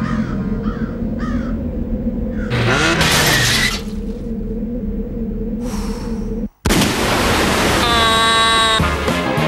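Cartoon sound effects over a steady low rumble: a few short squawking cries about a second in, a whoosh, then after a sudden break a loud noisy burst and a held pitched wail near the end.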